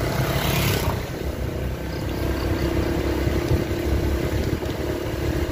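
Vehicle running steadily on the move, with a low rumble, a brief hiss in the first second and a steady hum from about two seconds in.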